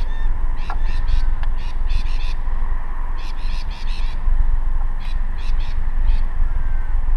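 Wind rumbling on the microphone, with several short bursts of rapid chattering bird calls coming and going.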